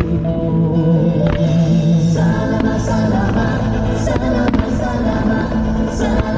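Song with singing over a beat, played loud over a fireworks show's sound system, with a few sharp firework bangs in it.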